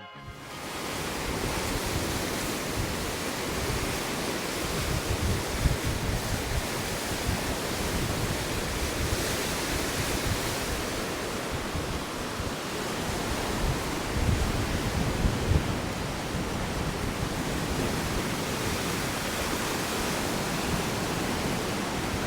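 Strong wind rushing across the microphone, with gusty low buffeting.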